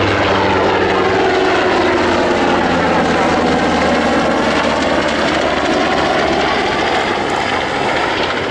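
NHIndustries NH90 twin-turbine helicopter flying low overhead, its rotor and turbines loud, with a sweeping whoosh as it passes. A low rotor thrum fades about halfway through as it banks away.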